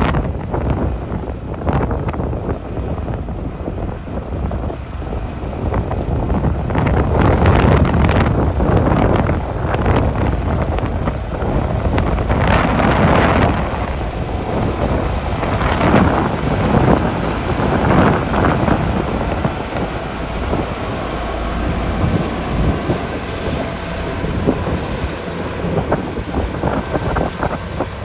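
Komatsu D41P bulldozer working gravel: its diesel engine runs under load, with rough clattering, scraping surges several times through the middle as the tracks and blade push material. Wind buffets the microphone.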